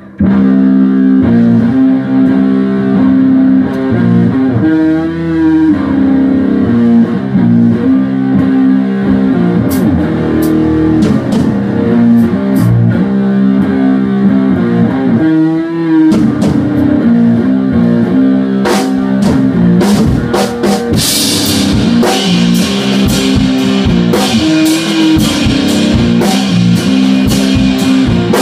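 A rock band playing live: an electric guitar plays a repeating riff, and the drum kit comes in about ten seconds in, with cymbals playing fuller from about twenty-one seconds on.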